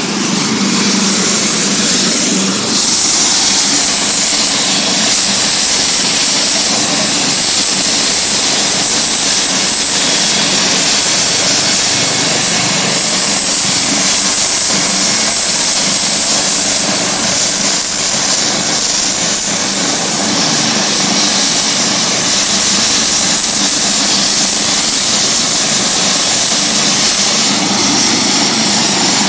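Ambulance helicopter running on the ground with its rotors turning: a loud, steady rush of rotor and turbine noise with a high, steady turbine whine that edges up slightly about eighteen seconds in.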